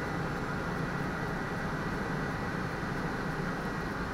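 Steady cockpit noise from an Airbus A300-600 flight simulator in simulated flight, with a faint steady high whine running under it.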